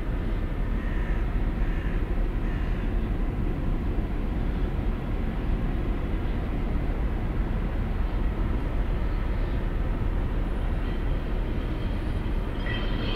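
Steady low rumble of the ferry Mega Express's diesel engines, with a faint even machinery drone, as the ship comes in under its own power.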